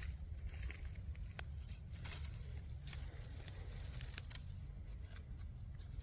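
Scattered light crackles and ticks of twigs and dead leaves being pushed through, over a steady low rumble.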